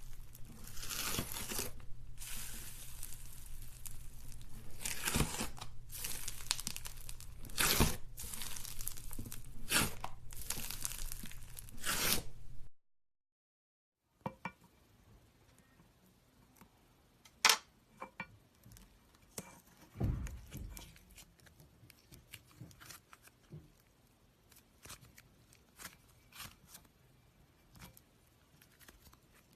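Slime being squeezed and stretched, making a dense crackling, tearing noise with louder pops, then after a brief silent gap only quiet, scattered clicks and pops.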